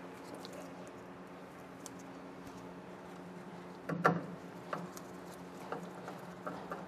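A small screw being fitted to a 4720 print head in a printer carriage: one sharp click about four seconds in as it is set in place, then a few light clicks as a screwdriver turns it down. A low steady hum runs underneath.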